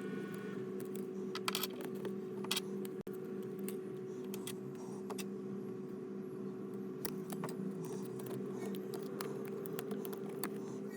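Scattered light clicks and taps of small tools and plastic laptop parts being handled during disassembly, over a steady low hum.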